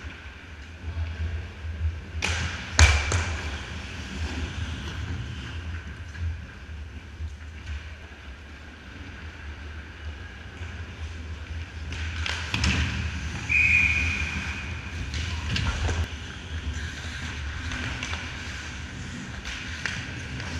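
Ice hockey play: sharp cracks of sticks on the puck and the puck hitting the boards, a cluster about two to three seconds in and more around twelve and sixteen seconds, over a steady low hum of the rink. A short shrill tone sounds about two-thirds of the way through.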